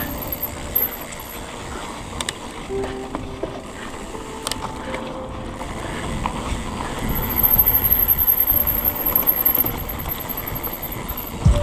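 Mountain bike rolling along a dirt trail: steady tyre noise with scattered small clicks and rattles from the bike.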